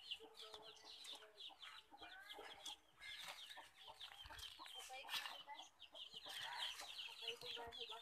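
Faint clucking of free-ranging chickens, with many short high chirps repeating throughout.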